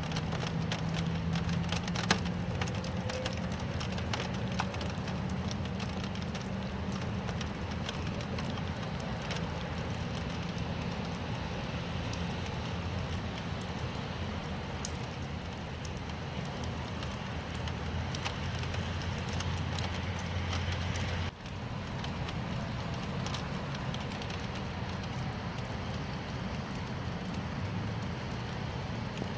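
Steady rain with scattered sharp drop ticks over a low steady hum. The sound cuts out for a moment about two-thirds of the way through, then the rain resumes.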